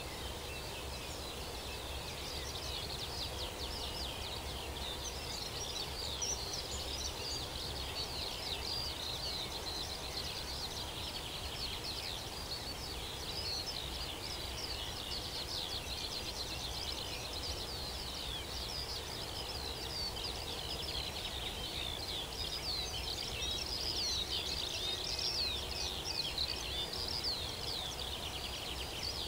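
A dense chorus of many songbirds chirping and trilling at once, over a steady low hum.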